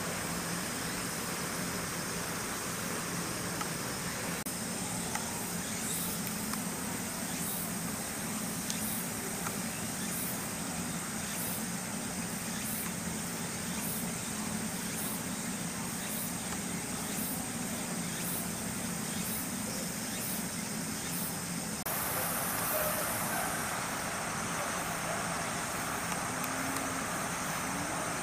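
Outdoor ambience: a steady hiss with a high, thin insect drone and a faint high chirp repeating a little less than once a second, over a low distant hum. The background changes abruptly about three-quarters of the way through.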